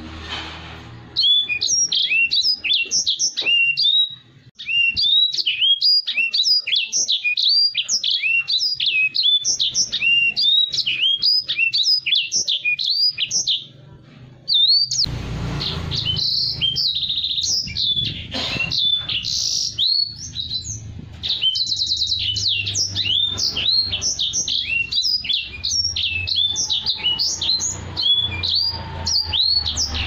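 Edel sanger (grey singing finch) singing a long, fast, twittering song of rapid high sliding notes, with a brief pause about 14 seconds in.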